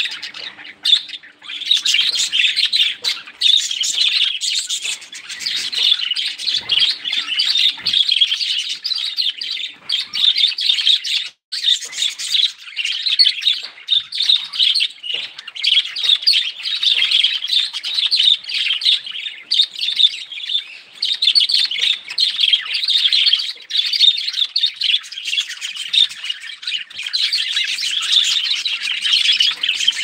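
A flock of budgerigars chattering and chirping all at once, a continuous dense warble of many birds.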